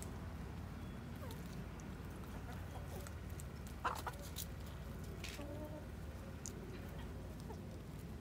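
Hens clucking quietly in short, soft calls while they feed, with scattered light clicks and one sharp knock about four seconds in.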